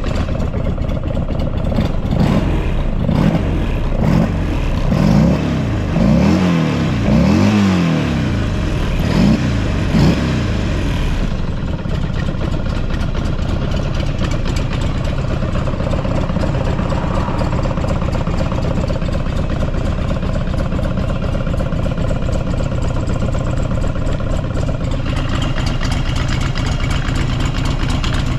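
Buell XB12SCG Lightning's air-cooled V-twin engine blipped through a series of quick revs, then settling back to a steady idle from about ten seconds in. It is sold as running without abnormal noises.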